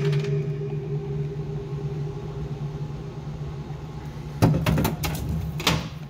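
A steady machine hum with a low and a higher pitch that holds level, then stops just before the end. A few sharp clicks and knocks come over it near the end.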